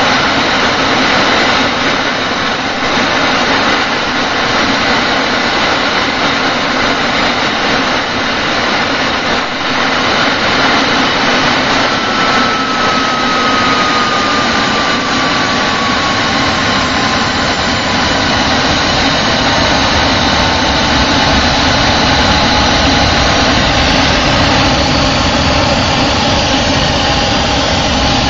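Home-built jet engine running at high power with a steady loud roar and whine. Through the middle the whine slowly falls in pitch as compressor boost eases off.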